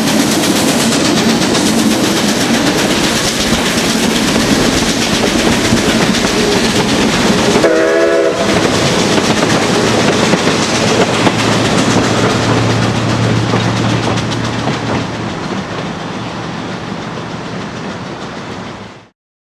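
Two steam locomotives, Quincy Railroad #2 and Robert Dollar Co. #3, working a train past with steady exhaust and rail noise. A steam whistle blows briefly about eight seconds in. The sound fades as the train pulls away, then cuts off just before the end.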